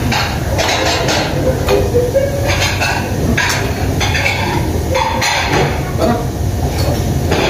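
Restaurant dining-room noise: repeated clinks and knocks of dishes and serving utensils over indistinct voices and a steady low rumble.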